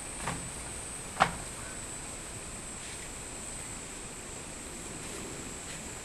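Cicadas droning steadily in a high-pitched chorus. Two short knocks come about a third of a second in and just over a second in, the second one louder.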